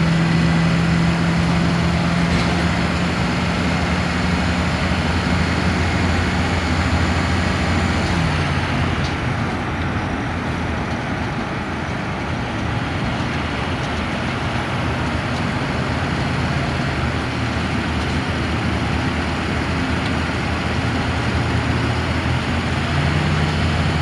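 Transit bus running down the highway, heard from inside the cabin: a steady engine hum over tyre and road noise. The engine note drops about eight seconds in and climbs back near the end.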